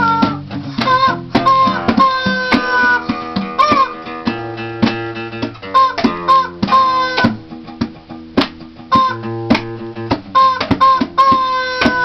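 Informal jam: acoustic guitar strumming while a rubber chicken is squeezed in long squawks that sag slowly in pitch, over frequent sharp percussive hits.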